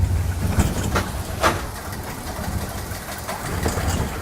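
Spinning roller coaster car running along its track: a steady low rumble with several short clacks and rattles.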